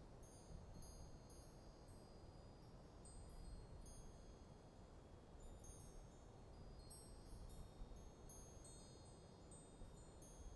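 Wind chimes ringing faintly in a light breeze, many high tones struck at random and overlapping as they fade. Beneath them runs a low, steady wind noise.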